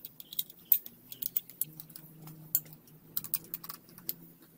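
Hand tools and small metal engine parts clicking and clinking irregularly, a string of sharp taps at uneven spacing.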